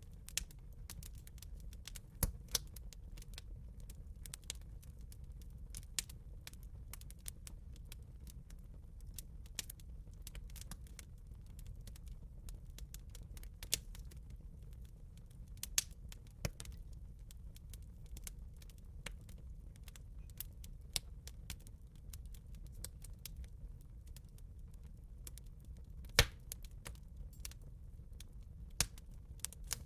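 Wood campfire crackling: irregular sharp pops and snaps over a steady low rumble, with a few louder pops about two seconds in and near the end.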